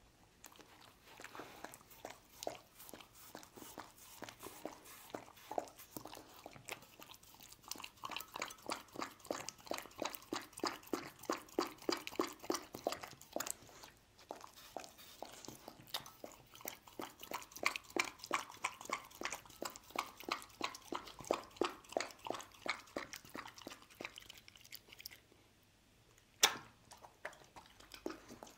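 A dog eating rice-cake soup, chewing the soft rice-cake slices with quick wet, smacking bites a few times a second. The eating eases off near the end, broken by one sharp click.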